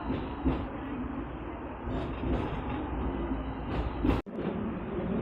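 Steady low rumble of a moving vehicle with scattered light clicks, broken by a sudden brief dropout about four seconds in.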